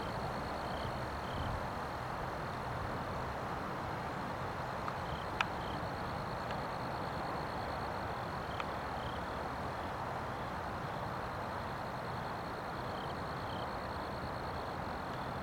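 Steady outdoor background noise with a constant high-pitched whine and faint short chirps every second or so. A sharp click comes about five seconds in.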